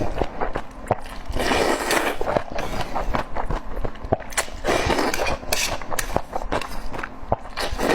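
Close-miked eating sounds: chewing with many wet mouth clicks and smacks, and a couple of longer noisy stretches of slurping or crunching.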